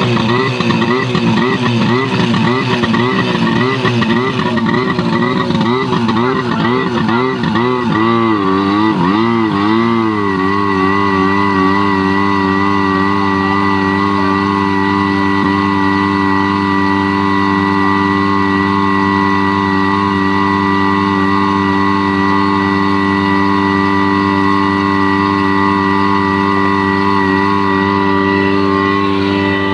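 Tohatsu V50 Rabbit fire pump engine running under test. For about the first ten seconds its speed rises and falls about twice a second, then it settles to a steady, even run.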